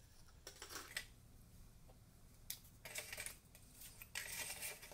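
A few short, faint taps and rustles as a folded paper strip is handled and a small glue bottle is picked up and moved on a tabletop.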